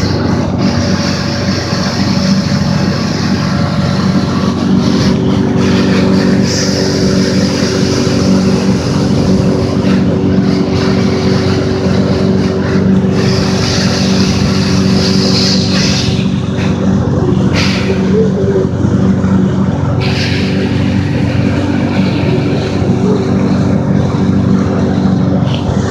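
Pontoon boat's motor running steadily at cruising speed, with the rush of water and wind along the hull.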